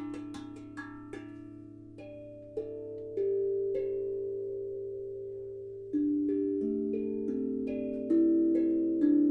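Meinl steel tongue drum in A minor played note by note, with quick light hand taps at first and then louder strikes with a mallet from about three seconds in, the notes ringing on and overlapping. A steady low hum sounds underneath.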